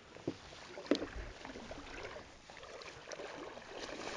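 Shallow sea water lapping and sloshing faintly, with a couple of small splashes or knocks in the first second.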